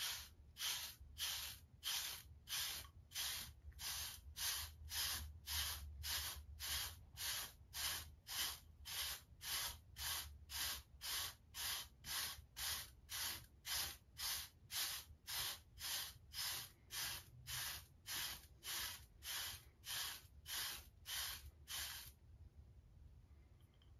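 2-6 King Wavy hard wave brush sweeping over short, waved hair: a steady run of brief bristly swishes, about two strokes a second. The brushing stops about two seconds before the end.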